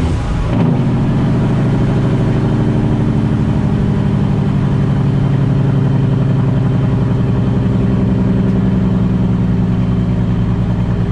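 Straight-piped Caterpillar C15 diesel of a Kenworth T800 semi pulling under way, heard from inside the cab. The engine note drops and picks up again about half a second in, then holds a steady drone that climbs slowly in pitch as the truck gains speed.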